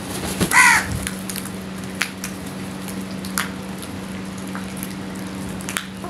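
A house crow caws once, a short harsh call about half a second in. Afterwards come a few faint sharp clicks of beaks pecking grain on concrete, over a steady low hum.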